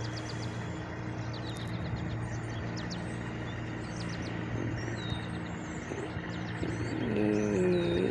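Steady low hum of an engine running at a distance, with small birds chirping over it. A voice starts near the end.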